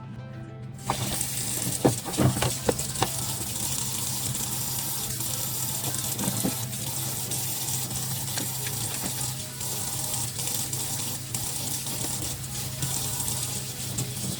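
Kitchen tap turned on about a second in and running steadily into the sink, with a few sharp knocks and clinks in the first seconds.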